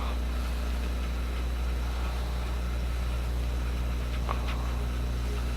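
Desktop computer running with a loud, steady mechanical drone and hum from inside the case, with one faint click about four seconds in. The noise is taken to be a failing hard drive grinding on itself.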